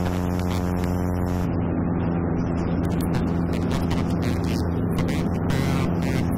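Steady drone of a Cessna 170B's IO-370 engine and propeller in cruise flight, heard from outside the cabin with wind buffeting the microphone. The drone turns duller about a second and a half in.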